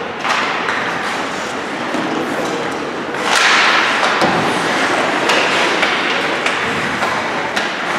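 Hockey game play heard in a rink: sharp clacks and cracks of sticks and puck over a steady wash of noise, with a louder burst of noise about three seconds in.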